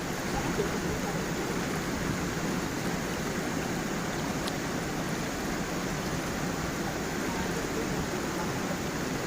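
Water of a gentle stream flowing over stones and down a small waterfall: a steady, even rush without a break.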